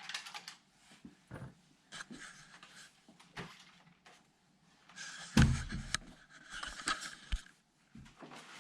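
Handling noises: scattered clicks and rustling, with one heavier thump about five seconds in.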